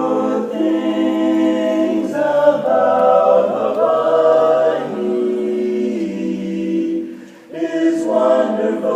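A cappella chorus singing held chords in harmony, the notes changing every second or so, with a brief break about seven seconds in.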